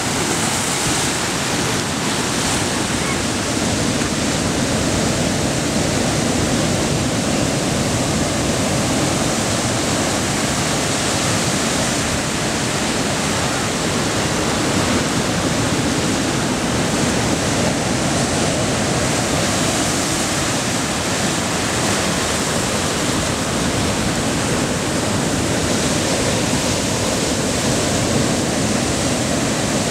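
Heavy ocean surf breaking over rocks and rolling onto the beach as white water, a steady continuous rush.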